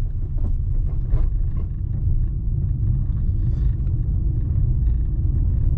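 Low, steady rumble of a car on the move, engine and tyre noise heard from inside the cabin.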